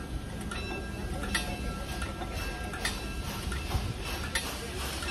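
Wigwag railroad crossing signal's bell struck about once every second and a half, ringing on between strikes, over a low rumble.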